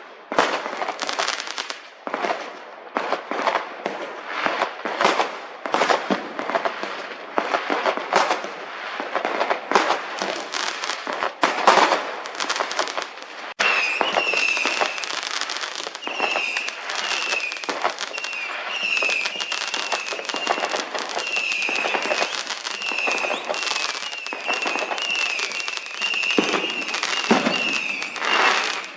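Fireworks going off in a rapid run of bangs and crackles. From about halfway, a string of short, high whistles repeats over the continuing crackle.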